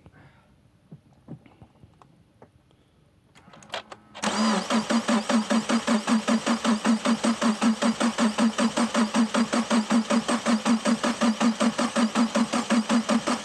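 Subaru FA20DIT turbo flat-four being turned over on the starter motor without firing: rhythmic cranking at about five pulses a second, starting about four seconds in and running for about ten seconds. At cranking speed the engine does not knock.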